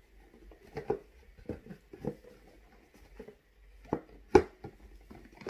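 Cardboard box and packaging being handled: scattered light taps, knocks and rustles, with one sharper knock about four seconds in.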